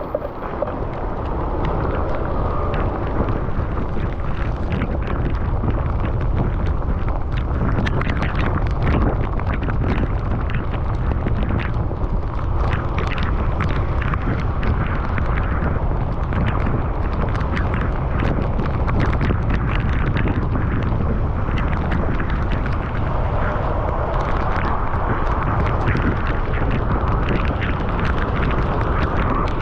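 Heavy wind rumble on the microphone of a bicycle-mounted camera riding through rain, steady throughout, with a scatter of sharp ticks through it.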